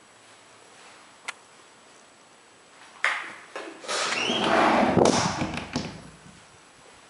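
A sharp click, then about three seconds of knocking and rolling noise from a door being opened and shut in a small room.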